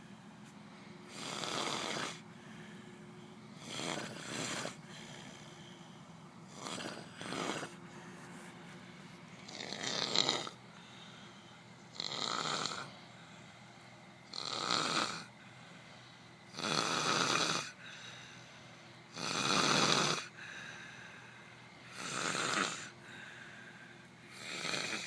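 A sleeper snoring in a steady rhythm: about ten loud snores, one roughly every two and a half seconds. A few of them come in two parts.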